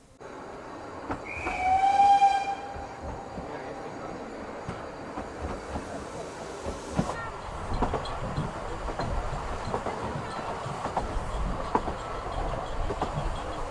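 Narrow-gauge steam locomotive's whistle blows once, about a second in, for roughly a second and a half. The train then runs on with a steady rumble and scattered clicks of wheels over the rail joints.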